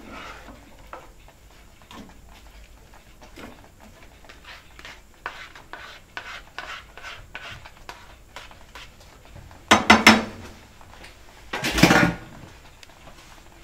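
Two spatulas stirring and scraping rice and vegetables around a nonstick frying pan: many soft scrapes and clicks. Near the end come two louder clatters of the utensils against the pan.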